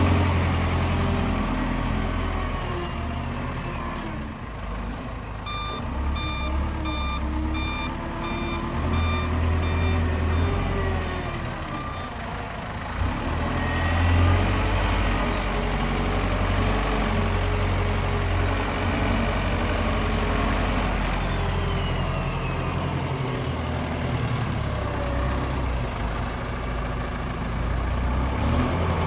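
Diesel engine of a Combilift C14000 forklift running and changing speed as the machine works. For several seconds in the first half, its reversing alarm beeps about twice a second.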